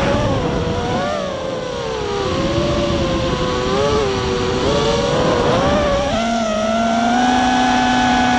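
Fury FPV racing quadcopter's motors and propellers whining, heard from the on-board camera. Several pitches slide up and down together with the throttle, then hold steadier from about six seconds in.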